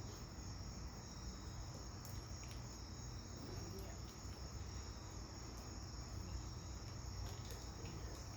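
Crickets chirping steadily in the background, with a few faint small clicks.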